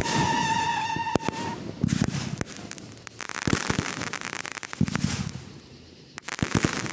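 Fireworks going off. A whistling tone fades out in the first second and a half, then come deep bursts about every second and a half amid sharp crackling.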